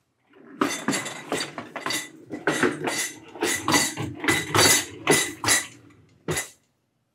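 Metal and glass kitchenware on a metal kitchen trolley (a stainless kettle, glass jars) clinking and rattling as it is handled: a quick run of about a dozen clinks over some five seconds, then one last clink.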